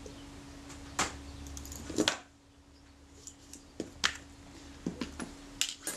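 Small metal clicks and taps from handling a camera shutter assembly and its screw and tab with fine tools. Two sharper clicks come about one and two seconds in, followed by a few lighter ticks.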